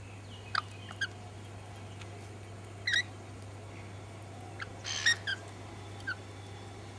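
Short chirping calls from wild Australian birds, about six brief calls scattered over a few seconds, with a steady low hum beneath.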